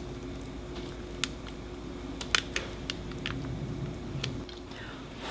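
An eating utensil digging into a freshly baked stuffed butternut squash: a scattering of light clicks and taps against the squash shell and dish over a faint steady hum.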